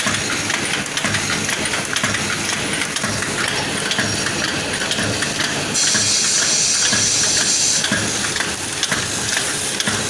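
Automatic vertical pouch packing machine running, with a steady clattering, mechanical noise. A high hiss stands out for about two seconds a little past the middle.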